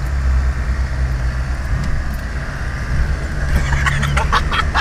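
Land Rover Defender engine running with a steady low drone as the vehicle drives slowly along a rough off-road track, with a quick run of short sharp clatters near the end.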